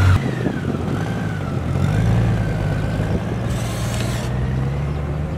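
Honda Gold Wing GL1800's flat-six engine running as the motorcycle pulls away at low speed, its low hum swelling a little about two seconds in. A faint wavering whine sits above it, and a short hiss comes about three and a half seconds in.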